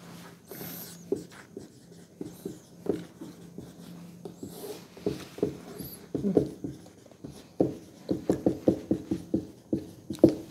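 Marker pen writing on a whiteboard: a run of short separate strokes, coming quickly over the last few seconds, after a brief wipe of the board near the start.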